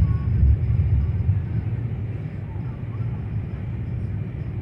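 Low steady rumble of engine and road noise heard from inside a moving bus on the highway, heavier for the first second or so.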